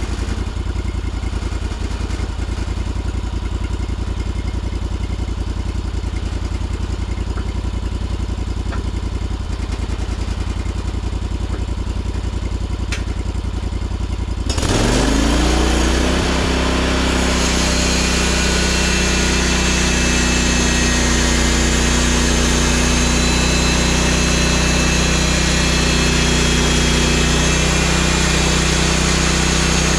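Portable sawmill's engine idling steadily, then about halfway through it revs up quickly and holds a higher, louder steady speed with a strong hiss added as the saw is brought up to working speed.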